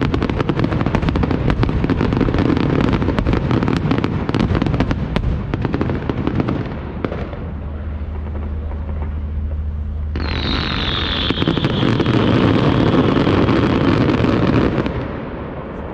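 Fireworks finale: a dense volley of rapid bangs and crackling for about six seconds, then a brief lull. About ten seconds in, a loud hissing rush with a falling whistle starts suddenly and stops near the end.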